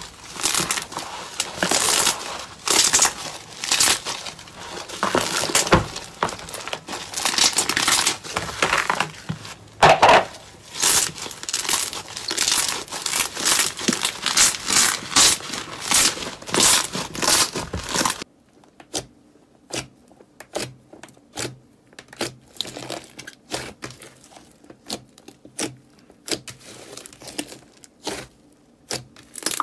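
Hands stretching and kneading thick slime, making dense, continuous crackling and crinkling. About two-thirds of the way in it cuts to sharp, separate clicks and pops as fingers press into a puffy slime.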